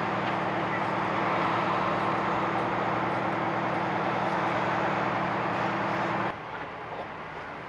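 A motor vehicle engine running steadily nearby, with a constant low hum over road and traffic noise. About six seconds in it drops away abruptly, leaving quieter street traffic.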